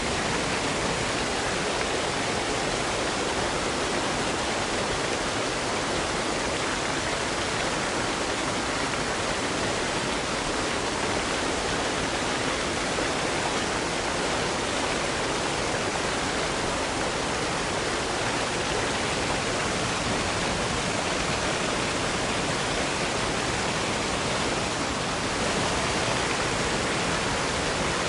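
Waterfall: falling water crashing in a steady, unbroken rush.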